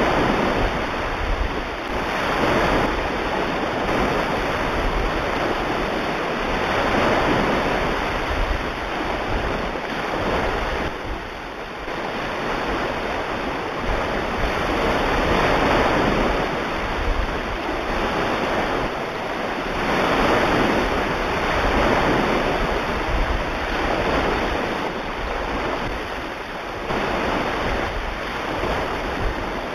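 Recording of ocean surf: waves washing in and drawing back, the rush swelling and fading every few seconds.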